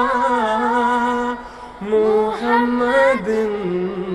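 Unaccompanied voice singing or chanting in long held notes, with a short break about a second and a half in, then quick winding turns of pitch before settling on a lower held note near the end.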